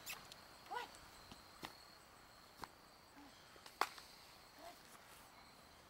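Faint steady chirring of crickets, with scattered clicks and rustles of movement close by; the sharpest click comes about two-thirds through. A short faint call sounds about a second in.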